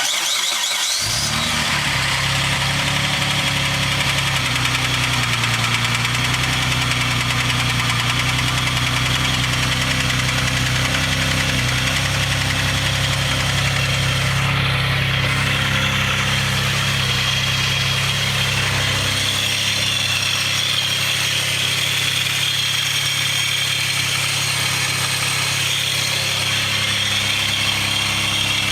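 Dodge Stealth twin turbo's 3.0-litre twin-turbo V6 idling just after start-up, with the lifter tick that the owner attributes to the valve lifters. About two-thirds of the way through, the deep part of the engine note drops away while the idle carries on.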